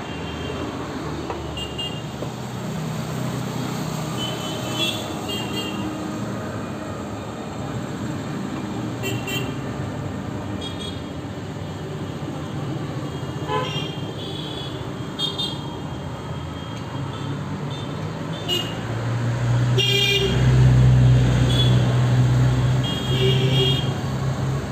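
Street traffic noise with many short horn toots scattered throughout, and a deep vehicle engine hum that swells to the loudest point about three quarters of the way through.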